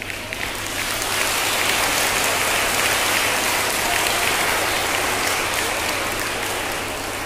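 Audience clapping, a dense patter of many hands that swells about a second in and slowly dies down toward the end.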